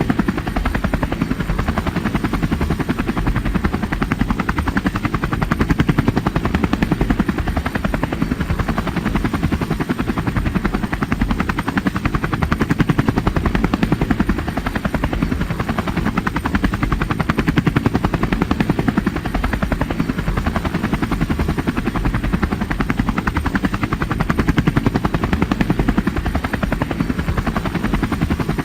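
Helicopter running, its rotor blades beating in a steady rapid chop that swells and eases gently every few seconds.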